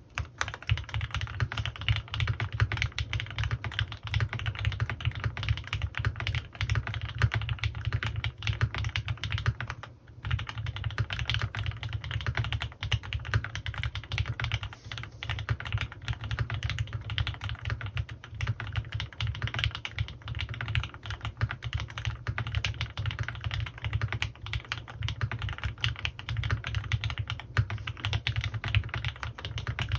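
Typing on a CannonKeys Rekt1800 custom mechanical keyboard with lubed Gateron Ink Black V2 linear switches and PBT keycaps. The keystrokes come fast and continuous, with a short pause about ten seconds in.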